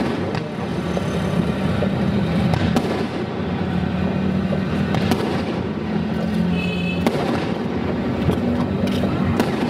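Aerial fireworks shells bursting overhead: several sharp bangs about two seconds apart over a continuous background din.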